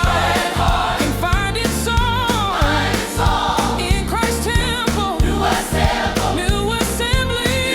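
Gospel song: a choir singing melodic runs over a steady beat with bass.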